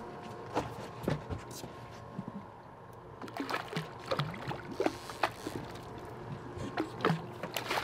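Water splashing and sloshing beside a boat's hull as a hooked small tuna thrashes at the surface, with scattered short sharp splashes and knocks. A steady low hum from an outboard engine runs underneath.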